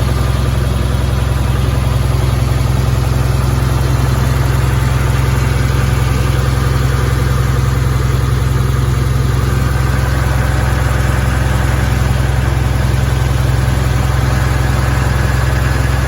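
Komatsu D31P-18 crawler bulldozer's diesel engine running steadily and loudly, with a faint higher whine joining a little past halfway.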